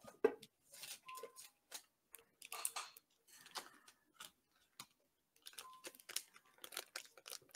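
Faint, irregular clicks and light rustles of small packaged items being handled and unwrapped.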